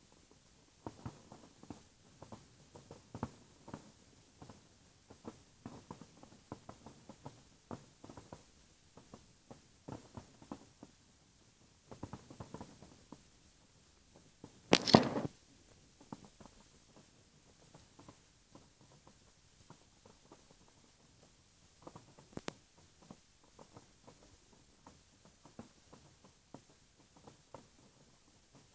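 Distant fireworks display: a string of muffled bangs and crackles, busiest in the first half, with one much louder sharp burst about halfway through.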